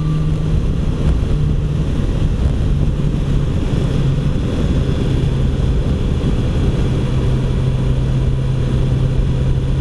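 BMW S1000XR's inline-four engine running at a steady cruise, its note dipping slightly about three seconds in and then holding steady, under a constant rush of wind and road noise.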